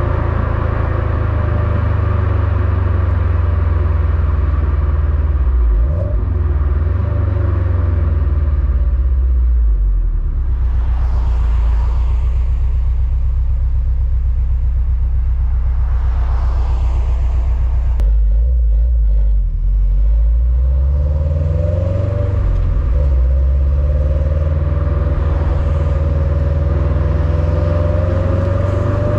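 Stock quad-tip exhaust of a 2021 Subaru WRX STI's turbocharged 2.5-litre boxer four, heard right at the tips while driving: a steady low rumble. Its pitch shifts a few times as the revs change, with road and wind hiss underneath.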